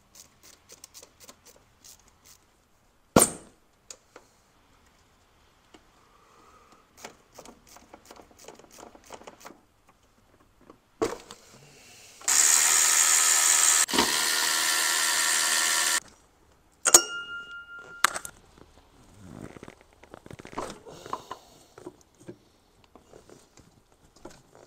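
Hand tools clicking and clattering in a car's engine bay, with one sharp knock a few seconds in. About halfway through, a cordless power tool's motor runs for nearly four seconds with a short break; this is the loudest sound. A brief high squeak follows.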